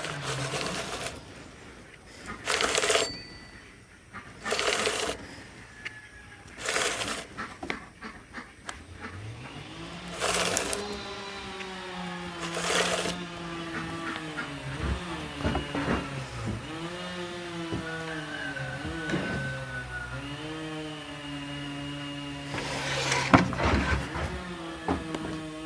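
Stihl MS 162 chainsaw being pull-started, several short pulls on the starter cord about two seconds apart. About nine seconds in the engine catches and runs, its speed dipping and recovering again and again as it labours to drive a new chain that binds on the bar, which the owner takes for a cheap, wrong-fitting knockoff chain.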